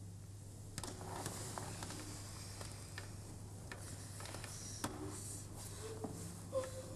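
Faint scattered clicks and crackles with a few brief squeaks over a steady low hum. The loudest is a short squeak near the end.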